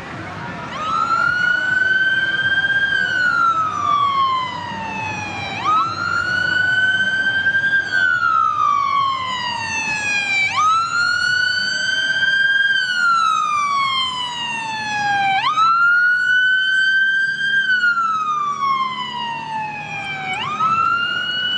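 Emergency vehicle siren wailing: each cycle jumps up, climbs a little, then glides slowly down, repeating about every five seconds. It starts about a second in.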